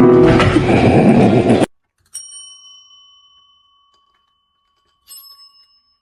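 Loud music and noise cut off suddenly, then a small metal bell dings twice: a clear strike about two seconds in that rings out for a couple of seconds, and a fainter one about three seconds later.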